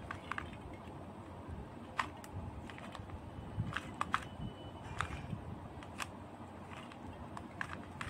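Stickerless 2x2 Rubik's cube being turned by hand through an OLL algorithm: sharp plastic clicks as each face turn snaps into place, a dozen or so at uneven intervals.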